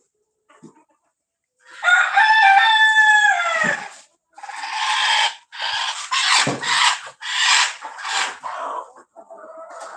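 Kadaknath rooster crowing: one long, held crow about two seconds in that drops in pitch at its end, followed by further loud crowing calls in several broken pieces until near the end.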